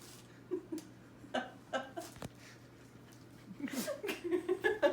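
Soft laughter and chuckling from people in a small room, growing livelier near the end.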